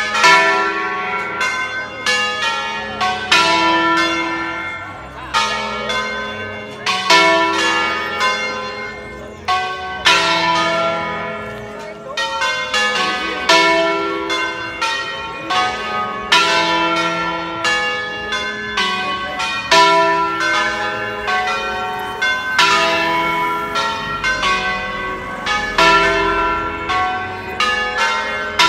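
Ring of five church bells in E3, cast by De Poli in 1949, rung in the Brescian concerto style. Quick strokes of different pitches overlap, and each bell's tone lingers. The pattern comes in repeating phrases about every three seconds.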